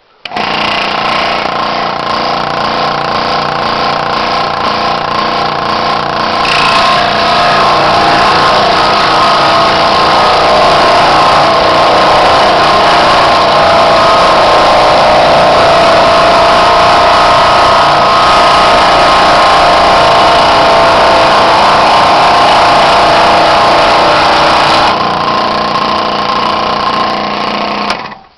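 1998 King Canada scroll saw switched on and running with a steady motor hum. It gets louder and harsher through most of the middle as the blade cuts a piece of wet wood, then runs free again and is switched off near the end.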